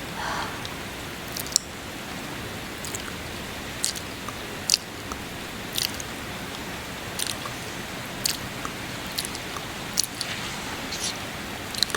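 Close-miked wet kissing smacks, about a dozen short irregular clicks roughly one a second, over a steady hiss of rain, with a breath just after the start and another near the end.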